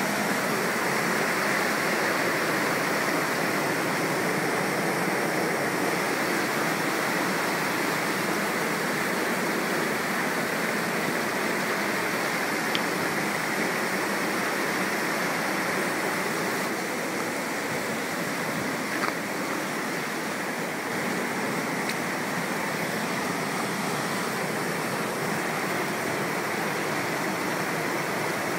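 Steady rushing of a waterfall, water pouring over rock ledges.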